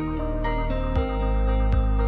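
Ambient background music: held chords over a soft, regular beat, moving to a new chord with a deep bass coming in about a second in.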